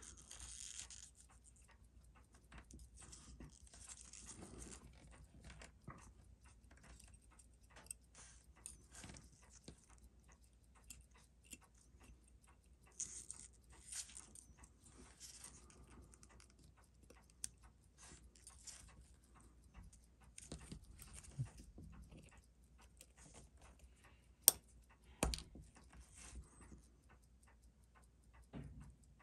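Faint scattered clicks and rustles of small tools and watch parts being handled, with one sharp click about 24 seconds in.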